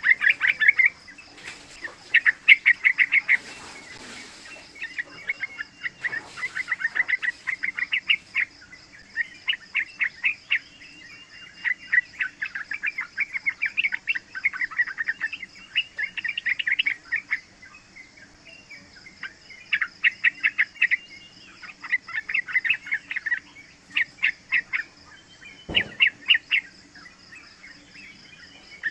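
Young sooty-headed bulbul singing in repeated bouts of rapid chattering notes, a new bout every second or two, over a faint steady high hum. A single thump sounds near the end.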